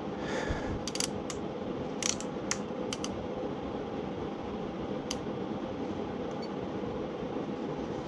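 Steady running of a furnace fan, with a series of short sharp clicks in the first three seconds and one more about five seconds in from a clamp meter being handled.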